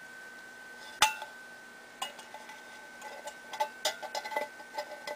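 Lineman's pliers and steel wire clicking and clinking against a tin can as the wire is bent into a cup handle: one sharp click about a second in, then a quick run of light metallic clinks in the second half.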